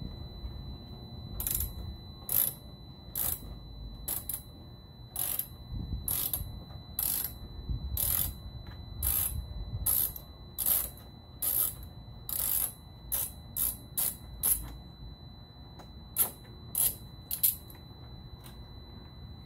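Hand ratchet clicking in short repeated strokes, about twenty runs of clicks spaced half a second to a second apart with a brief pause near the end, as screws are backed out of a motorcycle's side fairing panel.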